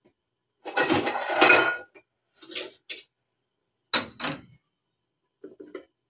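Kitchen dishes and metal cutlery clattering and clinking: a loud clatter about a second in, then a few shorter clinks.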